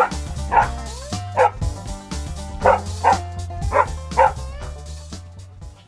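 A dog barking repeatedly, about seven short barks in the first four seconds or so, over background music.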